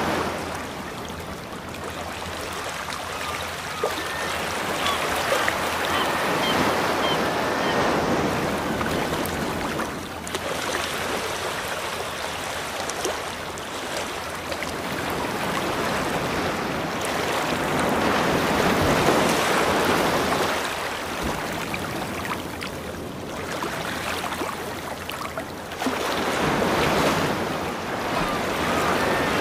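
Ocean waves washing on a shore: a steady surf noise that swells and falls back every several seconds.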